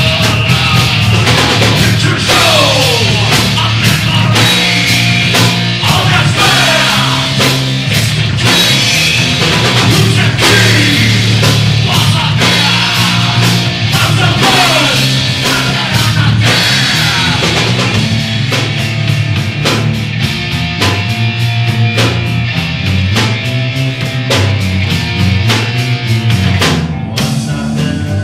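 Rock band playing: electric guitars over a drum kit, with several falling pitch slides.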